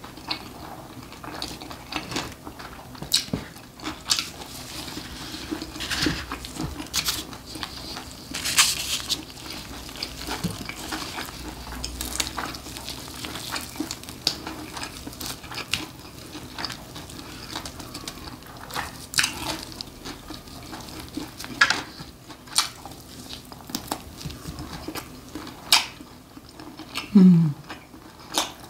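Close-up eating sounds of jokbal (braised pig's trotters): irregular wet clicks and smacks of chewing, with the rustle and tearing of the meat pulled apart by plastic-gloved hands and light knocks on plastic containers. A short falling hum comes near the end.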